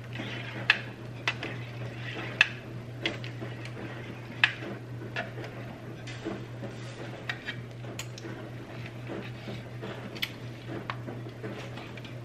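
Knife cutting set gelatin in a metal baking pan, its blade tapping and scraping on the pan's bottom and sides in irregular sharp clicks, the loudest within the first five seconds, over a steady low hum.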